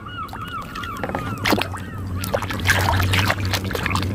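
Muddy water sloshing and splashing in a plastic basin as a hand swishes toys around in it. The splashes begin about a second and a half in, after the fading tail of a warbling call.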